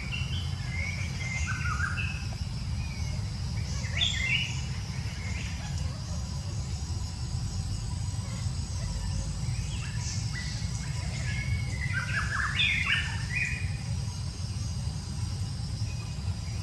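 Birds chirping in short, scattered bursts, busiest about four seconds in and again in the second half, over a steady low rumble and a faint steady high hum.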